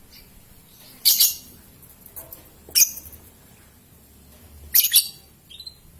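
Young lovebird giving short, high-pitched chirping calls: three loud ones spaced roughly two seconds apart, with fainter calls in between.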